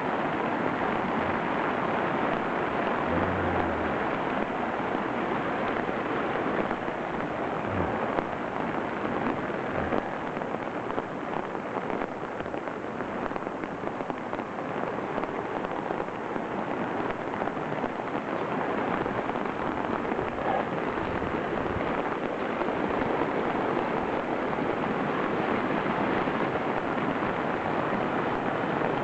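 Torrential rain and rushing floodwater washing away a driveway, a steady dense rushing noise.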